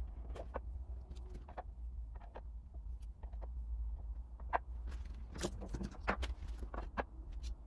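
Screwdrivers and other hand tools handled and slotted into a wooden wall rack: a series of light clicks and knocks of handles and steel shafts against wood, busiest in the second half. A steady low hum runs underneath.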